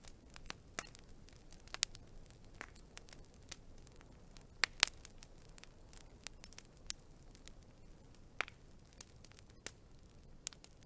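Wood fire crackling: irregular sharp pops and snaps over a faint steady hiss, with the loudest pair of pops a little before the middle.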